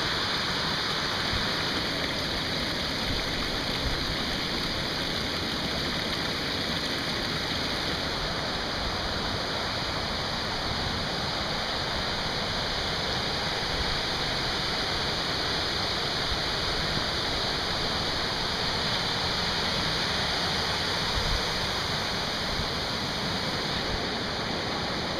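Rainwater runoff running in a shallow stream down a footpath and over puddles, a steady rushing of water with no let-up.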